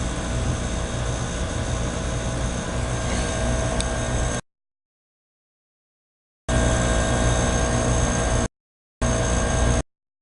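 York Affinity 2S heat pump outdoor unit running steadily in heat mode: a low compressor hum and fan rumble with several steady tones. The sound cuts out abruptly to dead silence about four seconds in, comes back two seconds later, and drops out again twice briefly near the end.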